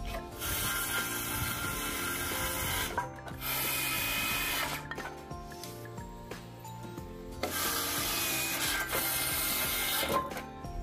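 Cordless circular saw cutting through pine 2x4 boards, two cuts of a couple of seconds each, one near the start and one about three-quarters of the way through. Background music plays underneath.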